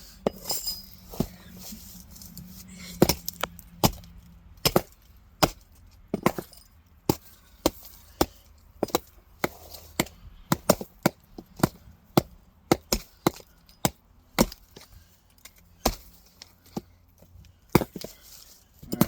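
Axes chopping into logs of firewood: a long, uneven run of sharp strikes, about one or two a second.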